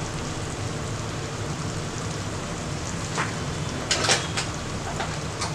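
Tomato and onion masala sizzling steadily as it fries in a steel pot, with a few light clicks about three to four seconds in as more spice powder is spooned on.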